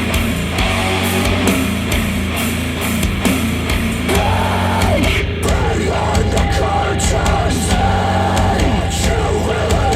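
Loud rock music played back over KEF Q350 bookshelf speakers: steady bass and drums throughout, with a wavering melody line, likely a voice, entering about four seconds in.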